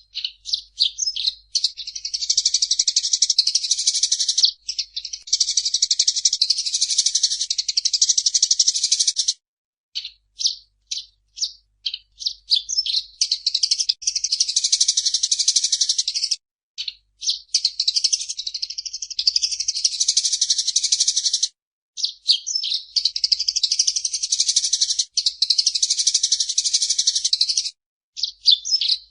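Eurasian tree sparrow chirping and chattering in long rapid bouts, high-pitched, broken by short pauses and a few runs of separate single chirps about ten and seventeen seconds in.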